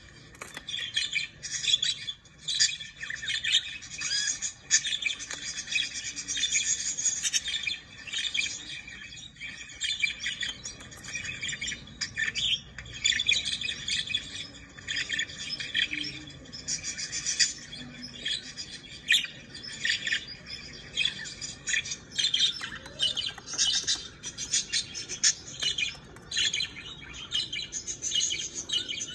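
Budgerigar chattering and warbling: a steady stream of quick, high chirps and squeaks with hardly a pause.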